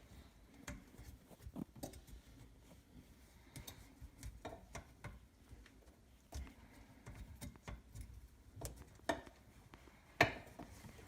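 Scattered light clicks and knocks of sink drain parts being handled and fitted, with a louder knock about ten seconds in.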